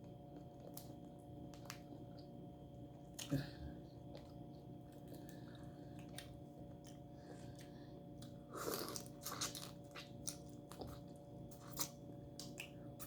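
A person chewing and crunching a whole shell-on shrimp with the head on. Scattered crisp crunches and clicks come through, with the densest run of them about nine seconds in.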